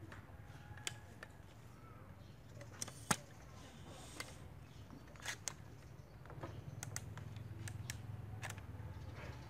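Knife cutting pieces off a carrot held in the hand: scattered sharp clicks and snaps at an uneven pace, the loudest about three seconds in.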